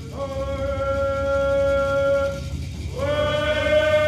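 Music of slow, long held notes, each sliding up into its pitch, with a second note beginning about three seconds in, over a low rumble.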